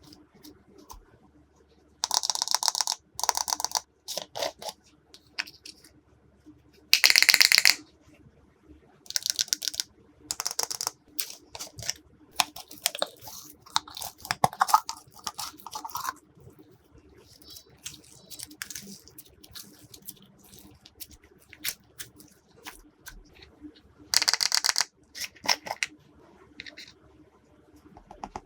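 Glossy slime being squished and pressed by hand, in separate bursts of dense crackly clicking, the loudest about seven seconds in.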